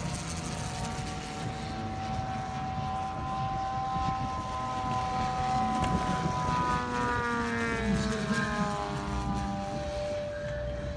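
Propeller engines of a large scale RC model of a Dornier Do 335 push-pull fighter, with one propeller in the nose and one in the tail, running on a steady note as it lands. About seven seconds in the note falls in pitch as the throttle comes back during the rollout, and it settles on a lower tone near the end.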